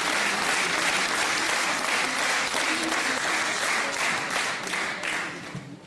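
Audience applauding, a dense steady clapping that dies away about five seconds in.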